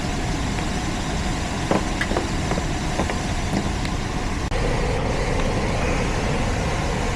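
Residential heat pump system running with a steady whooshing hum, a few light clicks in the first half, and a deeper hum coming in about four and a half seconds in.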